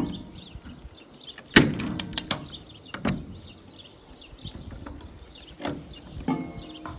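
Sharp snaps and knocks of old, brittle plastic escape-hatch trim being pried and broken off a school bus's roof, the loudest about a second and a half in, with a short squeak near the end. Birds chirp faintly in the background.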